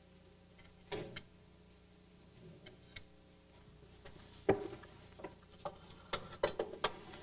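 Metal clinks and knocks as a compressed coil spring, held in a spring compressor, is worked loose and lifted out of a GM double A-arm front suspension. A few scattered clicks, a louder knock about four and a half seconds in, then a quick run of clinks near the end.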